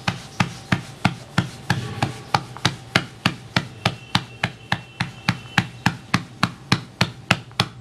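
A hand patting a disc of pearl millet (bajra) dough flat on a flour-dusted board: an even run of soft slaps, about three to four a second.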